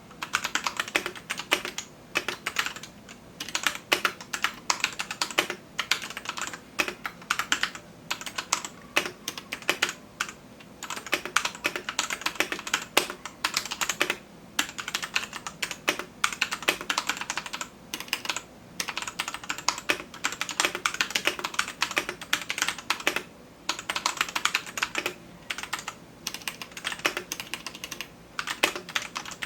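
Typing on a Royal Kludge RK84 mechanical keyboard: rapid key clacks in runs, with short pauses between them.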